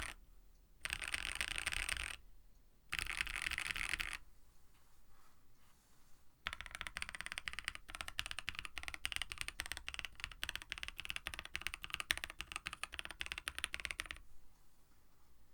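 Typing on a KBD67 Lite mechanical keyboard with lubed Black Cherry Pie linear switches (Cherry MX top, NK Cream stem, JWK bottom), an FR4 plate and GMK-style keycaps. It opens with three short bursts of very fast keystrokes, then pauses for about two seconds, then types steadily for about eight seconds before stopping near the end.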